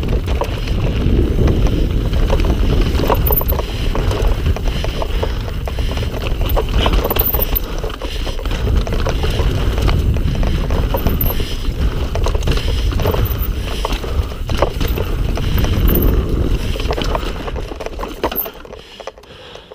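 Mountain bike being ridden fast down a rough trail: a steady rumble of wind and tyres with frequent knocks and rattles from the bike, dying down near the end as it slows to a stop.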